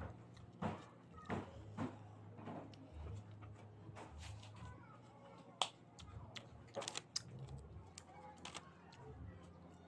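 Faint chewing of a crisp Wafello coconut creme wafer: scattered small crunches and clicks, with two sharper cracks about halfway through.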